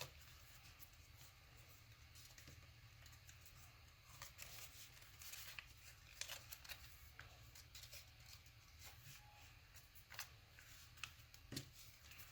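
Faint rustling and crackling of paper being folded and creased by hand: scattered soft ticks and scrapes, over a low steady hum.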